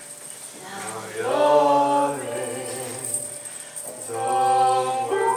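Live show-tune duet singing with musical accompaniment. It is quiet for the first second, then a long sung note comes in about a second in, and another phrase starts about four seconds in.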